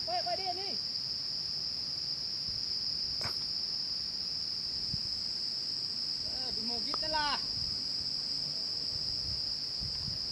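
A steady, high-pitched drone of forest insects, with a couple of brief pitched calls over it, one right at the start and one about seven seconds in.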